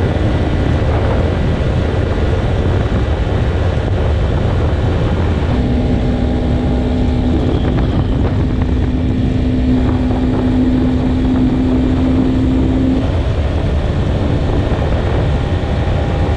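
Motorcycle cruising at highway speed: the engine runs steadily under a heavy rush of wind on the microphone. A steady hum joins in for about seven seconds midway.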